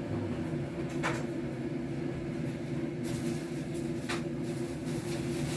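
Hotpoint washing machine running with a steady low hum made of several fixed tones. Two short sharp knocks come through, about a second in and about four seconds in.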